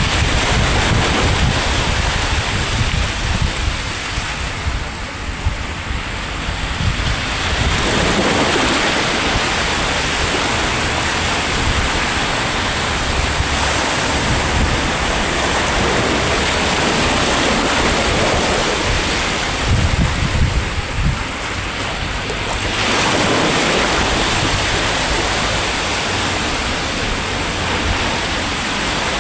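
Sea waves breaking on the shore: a continuous wash of surf that swells as waves break about eight seconds in and again near twenty-three seconds. Wind buffets the microphone, adding a low rumble.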